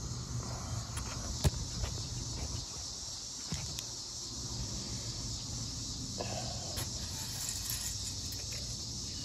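Steady high-pitched hiss with light clicks and taps from a metal engine-oil dipstick being worked back into its tube. One sharp click comes about a second and a half in.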